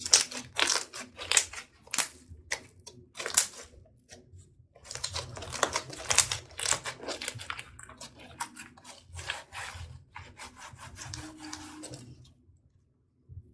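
Slime being squished and stretched by hand, giving rapid sticky crackles and small pops in bursts with short pauses. It stops about a second before the end.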